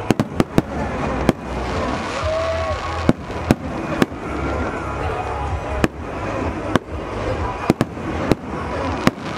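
Fireworks display: a dozen or so sharp bangs of bursting shells at irregular intervals, over a steady background of crowd noise.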